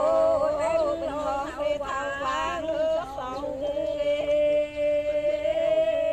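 A single voice singing an ornamented, wavering melody, then holding one long steady note through the second half.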